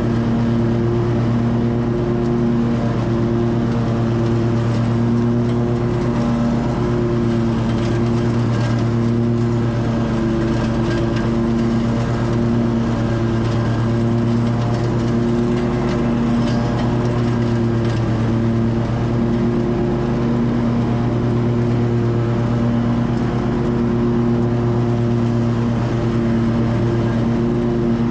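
Lawn mower engine running loudly and steadily at a constant pitch under mowing load.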